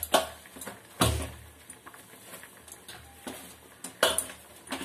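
Oiled dough being kneaded and pressed by hand in a steel bowl, with a few sharp knocks of the metal bowl. The two heaviest thumps come about a second in and near the end.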